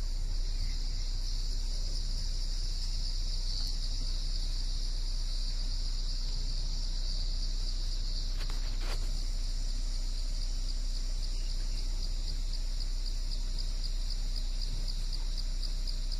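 A steady, high-pitched chorus of insects buzzing, turning into a fast regular pulsing near the end, over a low steady hum.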